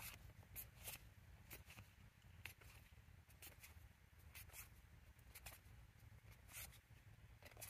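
Faint, brief swishes and flicks of Pokémon trading cards being slid one by one off a handheld stack, about one every half second to a second, over a low steady hum.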